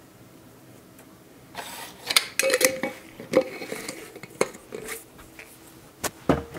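Dishes and utensils clinking and clattering at a kitchen counter, starting about a second and a half in, with a couple of sharp knocks near the end.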